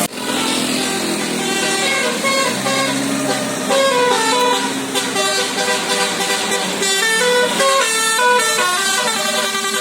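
A tour bus's basuri musical air horn (a 'telolet' horn) playing a quick melody of stepped notes. A lower note holds under the first few seconds, and then the tune runs faster and busier.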